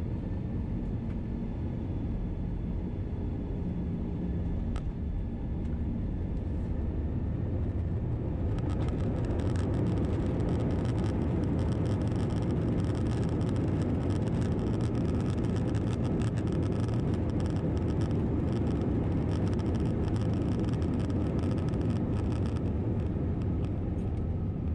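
Cabin noise of an Airbus A321-211 rolling on the ground after landing: a steady, dense rumble from its CFM56 engines and the airframe. About eight seconds in it grows louder, with a hissing, rattling clatter added, and this eases near the end.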